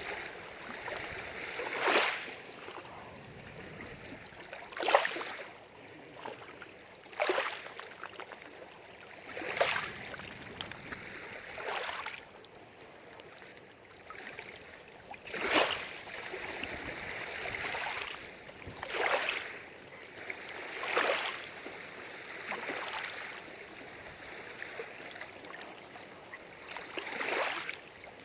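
Small lake waves lapping and splashing at the shore, one surge of water every two to three seconds, uneven in strength, over a steady wash.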